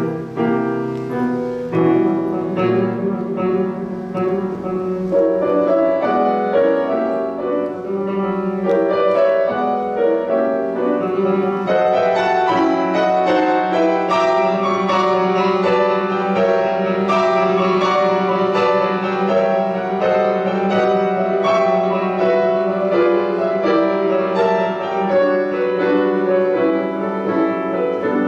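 Seiler grand piano played solo: a continuous classical passage of many quick notes, fuller after a few seconds.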